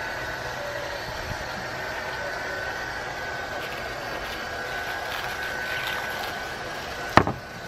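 Steady mechanical hum with a thin high whine held throughout, and one sharp knock about seven seconds in.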